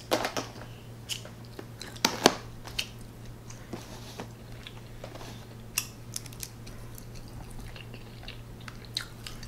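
Scattered sharp clicks and crackles of clear plastic clamshell takeout containers being handled and pressed shut on a table, the loudest about two seconds in.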